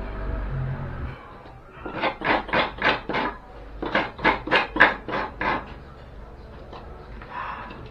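Coconut half being grated by hand: rasping scraping strokes, about three a second, in two runs of five or six strokes.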